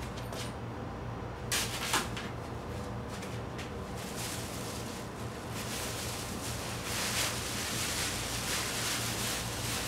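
Rummaging through a bag on the floor: two sharp knocks about a second and a half in, then rustling and handling noise. A steady low hum runs under it all.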